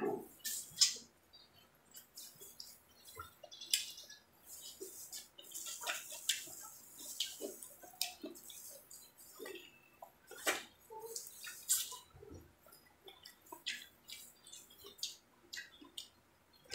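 Close-up eating sounds: wet chewing and mouth smacking on grilled shrimp, with scattered short clicks and crackles as shrimp are peeled by hand.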